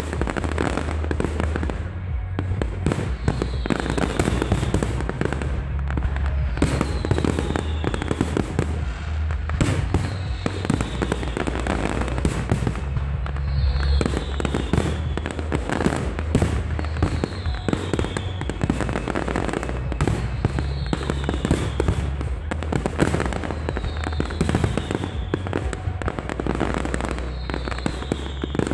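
Fireworks display going off continuously: many overlapping bangs and crackling bursts from shells, with no pause.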